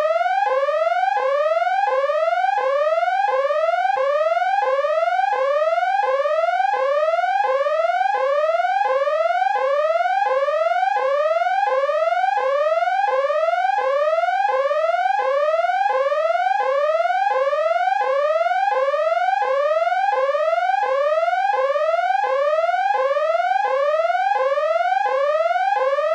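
Electronic danger alarm: a pitched tone that sweeps upward and snaps back, repeating about twice a second without a break.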